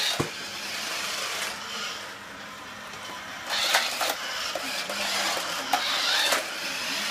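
Small electric motors of toy remote-control cars whirring, with a few sharp knocks about a third of a second in and around the middle.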